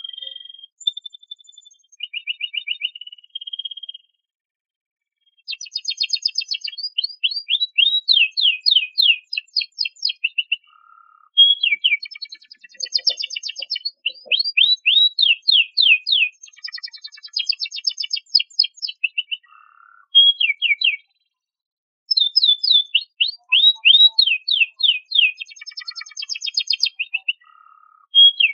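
Canary singing: long phrases of rapid trills and fast repeated down-sweeping notes, high-pitched, broken by a few short pauses.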